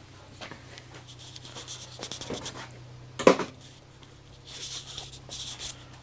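Scratchy rubbing and rustling handling noise from a handheld camera being swung around, with one sharp knock about three seconds in. A faint steady low hum runs underneath.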